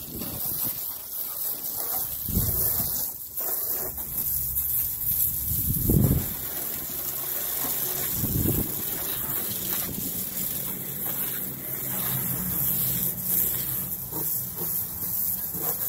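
Water spraying from a garden hose nozzle against a car's doors and body panels, a steady hiss of water rinsing the car. A few low rumbles of wind on the microphone come and go, the strongest about six seconds in.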